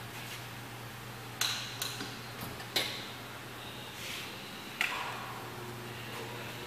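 Sharp metallic clicks and clunks, about five over the first five seconds, the loudest near the middle, as the stainless-steel electrical box door is swung shut and latched, over a steady low hum.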